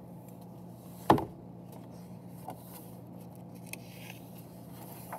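A hardcover picture book's pages being turned by hand: one sharp flap or tap about a second in as a page is flipped, then a few faint soft ticks of paper handling, over a low steady hum.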